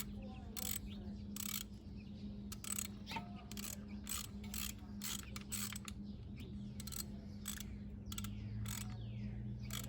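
Socket ratchet clicking in short repeated bursts, roughly two a second, over a steady low hum.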